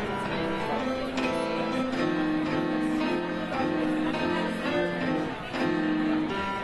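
Piano played live: a running passage of chords and melody notes.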